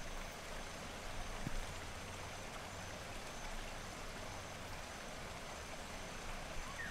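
Soft, steady rush of a flowing stream.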